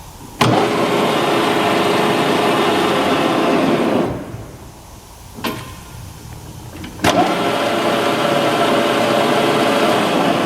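Harrison M300 centre lathe running under power. It starts abruptly, runs steadily, then winds down and stops; after a single click, it starts abruptly again and runs steadily.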